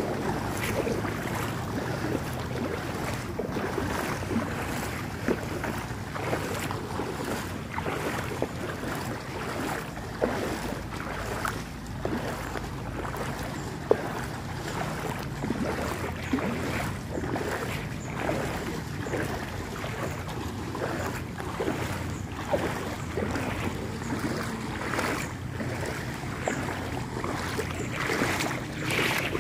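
Floodwater on a road splashing and sloshing, with many short sharp splashes over a steady low engine hum.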